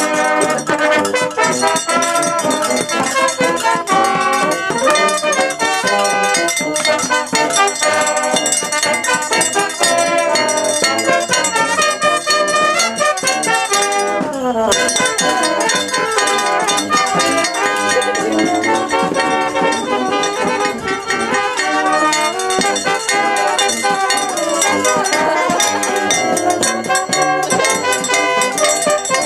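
Small brass band playing a tune together, with trumpets, flugelhorn, tuba and saxophone, and a handbell ringing along. The playing breaks off for a moment about halfway through.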